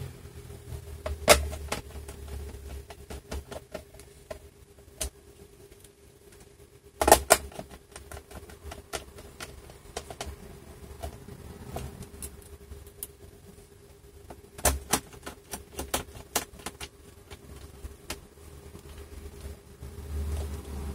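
Scattered light clicks and taps of a screwdriver and small screws against a laptop's base panel as the screws are driven back in, with a few sharper knocks. A faint steady hum underneath.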